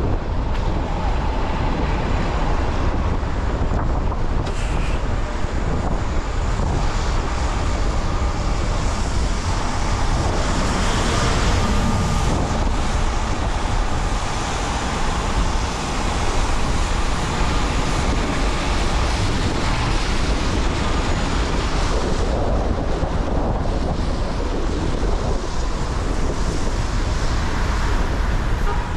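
Car driving on wet city streets: steady rushing road noise and wind on the microphone, with a constant low rumble and tyre hiss.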